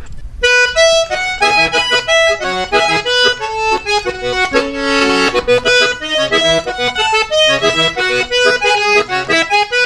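Button accordion played solo: a fast run of melody notes and chords starting about half a second in, with a fuller held chord about halfway through.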